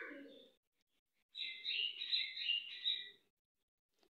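Birds chirping for about two seconds, shortly after a brief lower call at the start.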